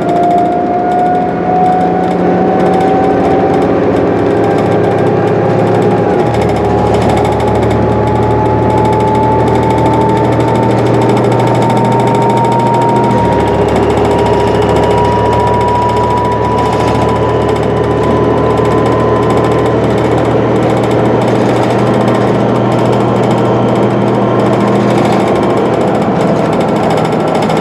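Inside a 2011 New Flyer D60LFR articulated bus at highway speed: the Cummins ISL diesel drones under loud road noise and rattling. A thin whine rises slowly in pitch as the bus gains speed.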